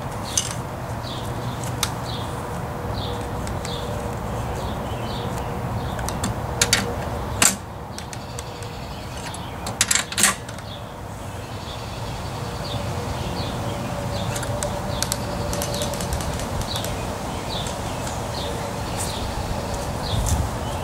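A small bird chirps over and over above a steady low outdoor hum. A few sharp metallic clicks come about a third of the way in and again near the middle, as a spark plug is threaded back into a snowblower engine's cylinder head.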